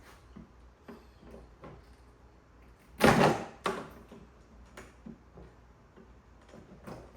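Small clicks and knocks of wiring and equipment being handled while the solar leads are disconnected from a DIY power station, with one loud clatter about three seconds in and a sharp knock just after it.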